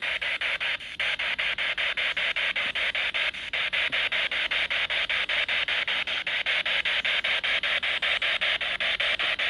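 Radio static from a spirit box sweeping through stations, a steady hiss chopped into quick pulses about seven times a second.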